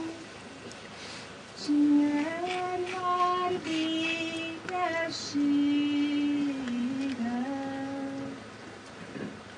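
A Hungarian folk singer's solo female voice singing unaccompanied: a slow melody of long held notes that step from pitch to pitch, with short breaths between phrases.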